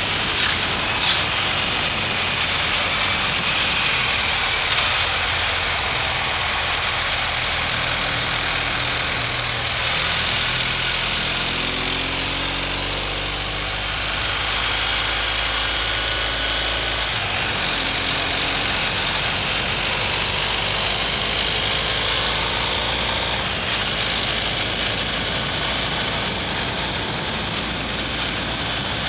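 BMW R1250 GS Adventure's boxer-twin engine running under way, heard with a steady rush of wind and road noise. The engine note glides up and down about halfway through.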